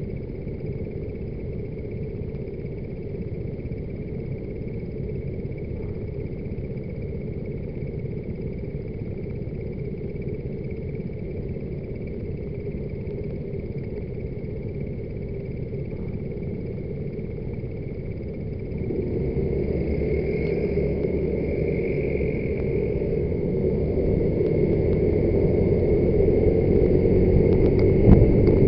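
Scooter engines idling while stopped, then the scooter carrying the camera pulls away about 19 seconds in, and its engine and road noise grow steadily louder as it picks up speed.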